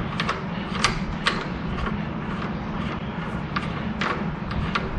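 Light, irregular metallic clicks, about seven, as the threaded rod end of a tractor three-point-hitch top link is spun by hand into its freshly greased tube, over a steady low background hum.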